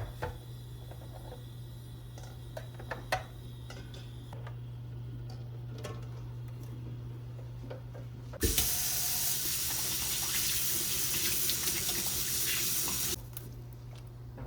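Water running from a tap, turned on suddenly about eight seconds in and shut off after about five seconds. Before it come a few light clicks and knocks over a steady low hum.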